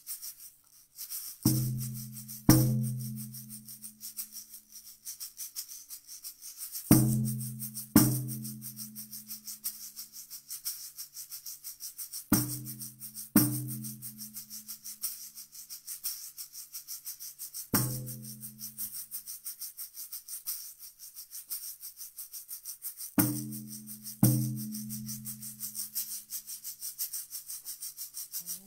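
Deep, pitched drum strikes, mostly in pairs a second apart and repeating about every five seconds, each ringing out for a second or two. Under them a shaker or rattle is shaken steadily and quickly.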